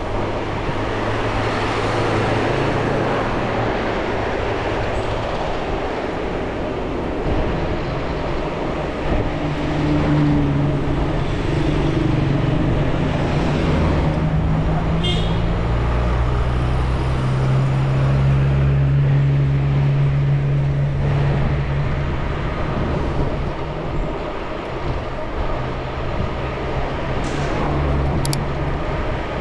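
City street traffic noise heard while riding an e-bike: a steady mix of car engines humming and tyre noise. There is a short high squeak about halfway through and a few sharp clicks near the end.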